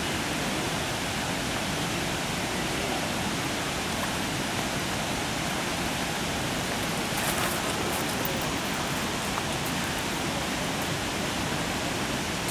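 Steady rush of running water, an even hiss that holds without a break, with a few faint clicks about seven to eight seconds in.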